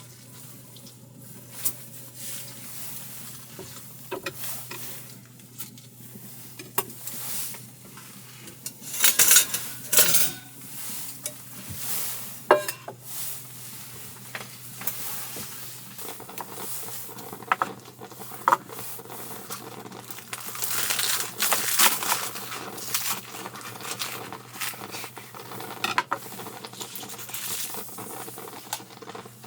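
Cookware and utensils clinking, knocking and scraping in irregular bursts, with some sizzling.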